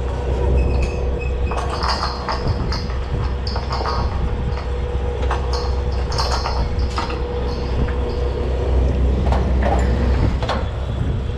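Steady low rumble of drilling-rig machinery, with a run of metallic clanks and rattles of drill pipe and steel rig hardware from about a second and a half in to about seven seconds, and a few more near the end, as pipe is latched at the derrick.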